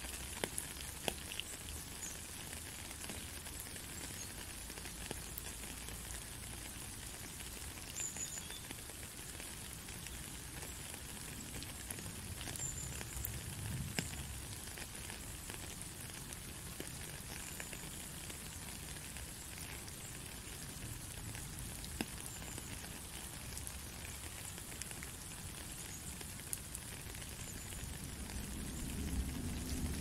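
Steady rain falling, an even hiss with scattered drops ticking.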